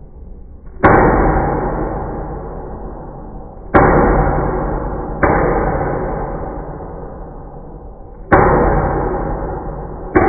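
Five loud metallic clangs at uneven intervals, each struck sharply and then ringing out and fading slowly over a couple of seconds, the last coming right at the end.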